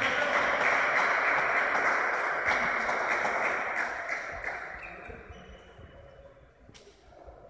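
Applause in a sports hall just after a table tennis point ends, loud for a few seconds and then dying away, with a few table tennis ball bounces.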